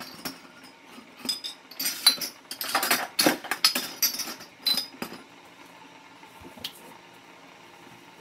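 Dishes and kitchen utensils clinking and clattering as they are handled on a kitchen counter, a quick string of sharp knocks and clinks that dies away about five seconds in.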